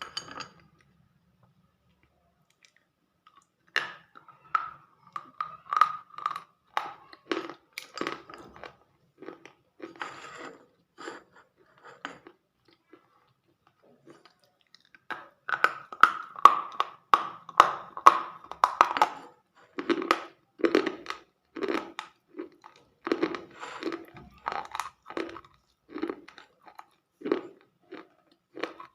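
Close-miked chewing with crunchy bites, two to three crunches a second, in two runs broken by a pause of about two seconds in the middle.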